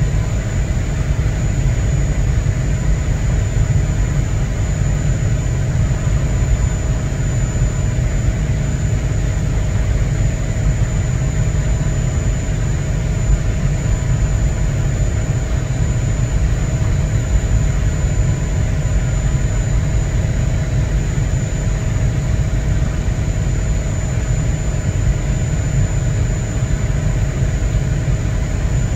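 Large container ship's diesel engine running as the ship approaches: a steady low rumble with a faint steady hum of tones above it.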